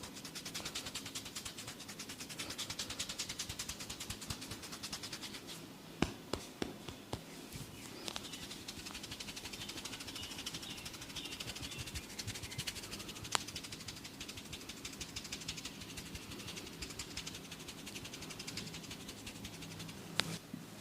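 Head massage: rapid, even tapping strokes for about six seconds, then a few sharp clicks, then softer rubbing with a click now and then.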